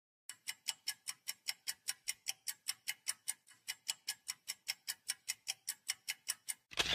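Steady, rapid clock-like ticking, about five ticks a second, cut off near the end by a short, louder burst of noise.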